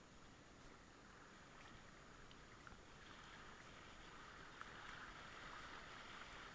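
Faint rushing of river rapids around a whitewater kayak, growing louder about three seconds in as the boat paddles into rough water, with light splashes from the paddle blades.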